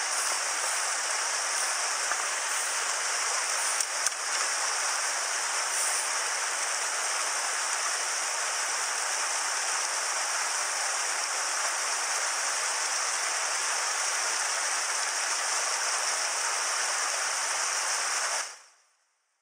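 Headwater mountain stream running over small cascades among boulders: a steady rush of water that fades out quickly near the end.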